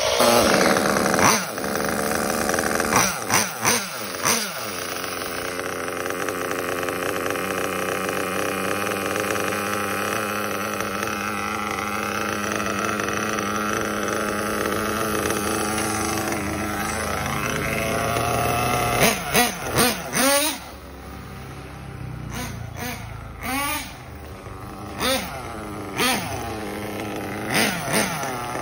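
Kyosho KE21 .21 two-stroke nitro engine in a 1/8 buggy, running at a fairly steady pitch for a long stretch, then revving up and down in quick bursts as the buggy is driven, while the engine is being tuned for running.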